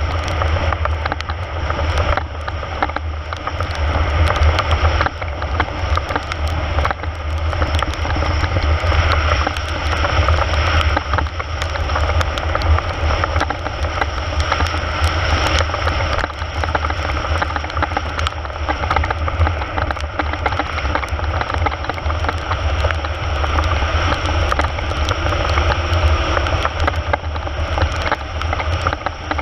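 Steady rushing wind noise buffeting the microphone, heavy in the low rumble, with scattered faint clicks and ticks.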